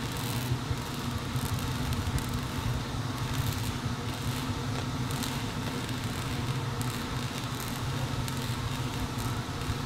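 Steady low mechanical hum under an even hiss, with faint scattered crackles: machinery running continuously.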